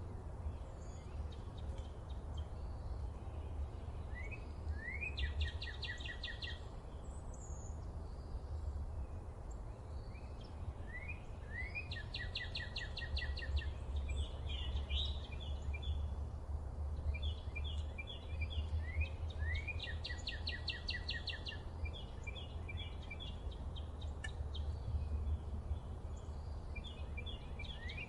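A songbird singing the same phrase over and over, a couple of quick rising notes followed by a fast, even trill, about every seven seconds, with other short chirps in between. Under it runs a steady low rumble.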